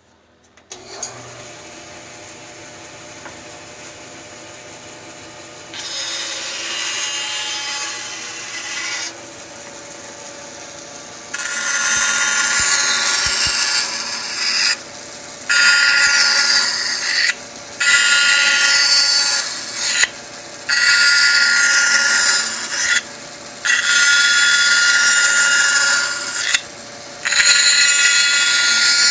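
14-inch Jet bandsaw switched on about a second in and running, then cutting wood over and over to notch the pieces against a jig. The cutting gets louder partway through, with short dips between cuts.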